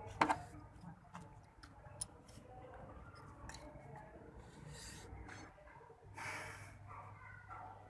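Small metal clicks and knocks of a spark plug spanner being worked on a motorcycle spark plug, with a sharp clack just after the start and another about two seconds in. Two short breathy hisses come later.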